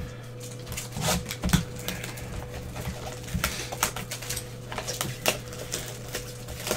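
Cardboard 2020 Absolute Football card box being handled and opened by gloved hands: an irregular string of sharp crackles, taps and tearing scrapes from the cardboard and its wrapping, over a steady low hum.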